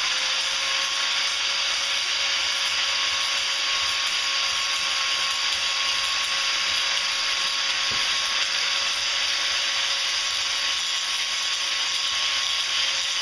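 Electric angle grinder spinning up and then running steadily with a high whine as its disc grinds a workpiece clamped in a bench vise. It cuts off suddenly at the end.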